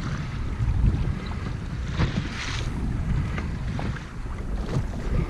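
Wind buffeting the microphone in a steady low rumble, with small waves washing and slapping against a boat's hull; a louder wash comes about two seconds in.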